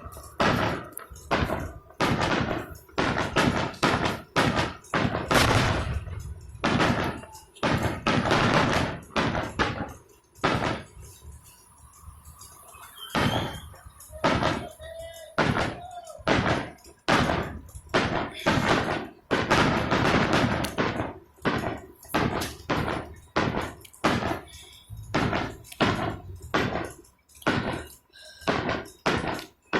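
Fireworks finale: a rapid barrage of shell bursts, several bangs a second, thinning briefly about eleven seconds in before the bursts pick up again.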